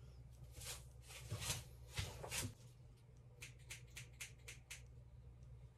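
Scissors snipping through hair during a haircut: a few spaced cuts, then a quick run of about eight small snips.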